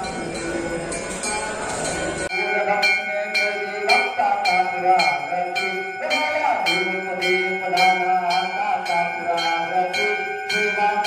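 Busy market hubbub, then a sudden cut about two seconds in to a Hindu devotional song (aarti) with a voice singing and bells struck in a steady beat of about three strikes a second.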